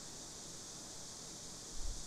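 Steady microphone hiss, with one short low thump just before the end.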